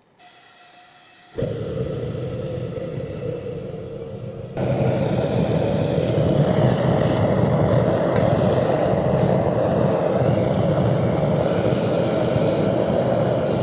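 Gas forge being lit: a faint gas hiss, then about a second in the burner catches and runs with a steady rushing roar, which gets louder again about four and a half seconds in.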